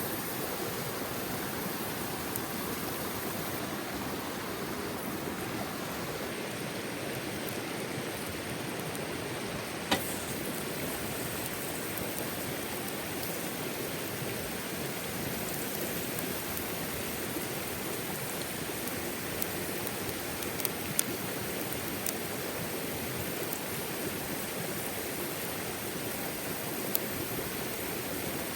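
Steady rushing of a mountain river, with a few sharp pops over it, the loudest about ten seconds in.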